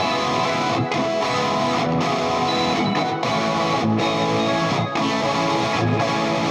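Background music led by a guitar, mostly electric, playing steady held chords with a short break about once a second.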